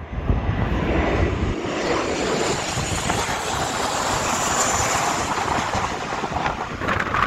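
Twin-engine jet airliner passing low overhead on final approach to land: a loud jet roar with a high engine whine that is strongest about four to five seconds in.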